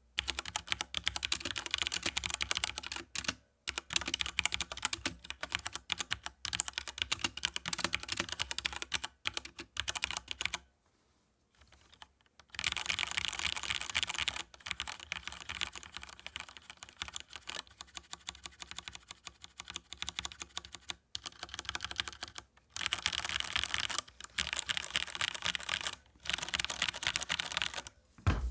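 Fast typing on a Cooler Master Rapid I mechanical keyboard with linear Cherry MX Red switches and ABS keycaps: a dense clatter of keystrokes in bursts, with brief pauses and one break of about two seconds some eleven seconds in.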